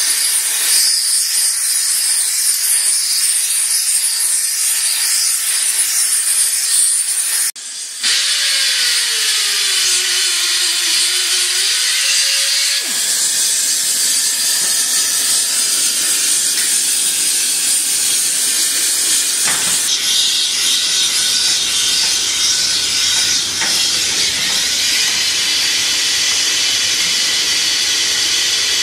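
Steady loud hiss of a gas torch flame heating rivets in a firebrick rivet hearth. A short break comes about seven seconds in, followed by a low tone that dips and rises for about four seconds.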